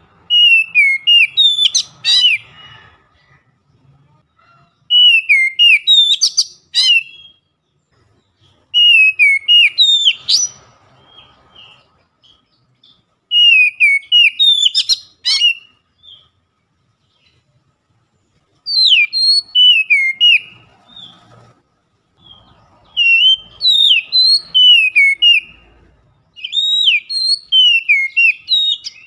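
Oriental magpie-robin singing loudly: seven bright whistled phrases of two to three seconds each, with swooping notes and quick high flourishes, separated by short pauses.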